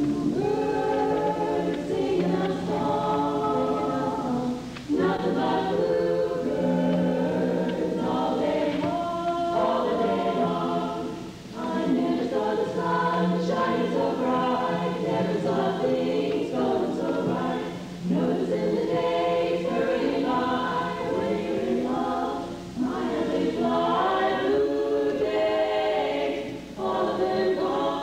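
Women's chorus singing a cappella in close harmony, held chords sung in phrases of a few seconds with brief breaks between them.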